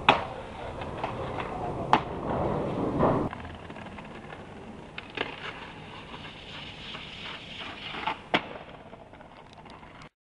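Skateboard wheels rolling on concrete, with about four sharp clacks of the board popping and landing and the scrape of the trucks grinding along a concrete ledge. The sound cuts off suddenly near the end.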